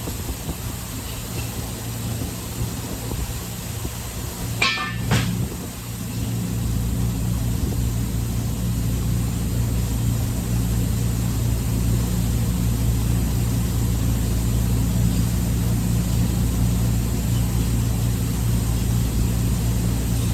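An engine idling steadily with a low, even hum, and one brief clatter about five seconds in.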